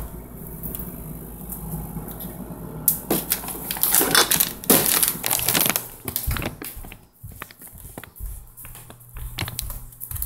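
Handling noise from a handheld phone: irregular rubbing, scraping and knocking against the microphone while the holder walks, loudest in a scratchy stretch from about three to six seconds in.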